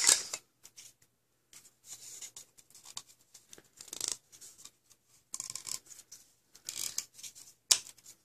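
Plastic Nerf blaster barrel parts being handled and worked together, the taped inner barrel rubbing inside the outer barrel: short, scattered scraping and rubbing sounds, with a sharp click near the end.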